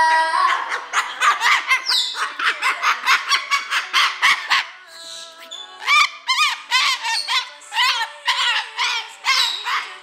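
Umbrella cockatoo squawking short calls in time with the beat of a song playing underneath, about two or three a second, with a brief lull about halfway through.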